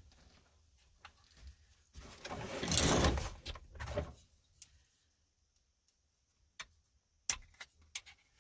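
Hands handling the parts of a car seatbelt retractor: a noisy stretch of about two seconds, then a few sharp clicks near the end.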